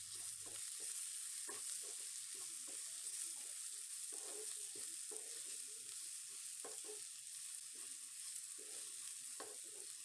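Wooden spatula stirring and scraping chopped bitter gourd, onion and tomato around a pan, with a faint steady sizzle of frying as the spice powders cook in the oil until their raw smell goes.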